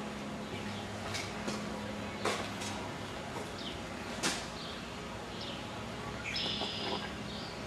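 Small birds chirping in short, high calls that fall in pitch, with a brief burst of chattering near the end, over a steady low hum; two sharp clicks about two and four seconds in.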